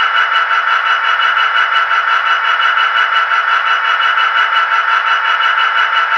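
Digital sound decoder of a model Class 66 diesel locomotive playing a steady running sound with a fast, even pulse, thin and without bass as it comes from the model's small speaker.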